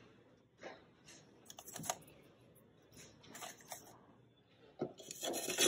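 Scattered light clicks and rustling handling noise from a handheld phone camera being carried and moved, with a louder brief burst of noise near the end.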